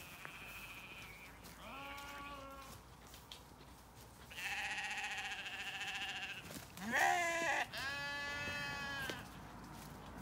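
Zwartbles sheep bleating, several separate calls one after another; one long bleat lasts about two seconds, and the loudest, about seven seconds in, swoops up and down in pitch.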